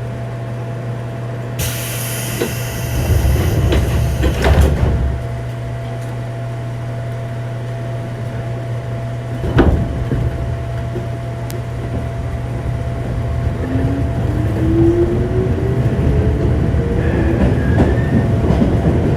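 Inside a JR 205-0 series motor car standing with its steady electrical hum. A burst of air hiss with heavy thumps comes about two to five seconds in, and a single sharp knock near ten seconds. From about fourteen seconds the inner-fan traction motors start up with a rising whine as the train pulls away.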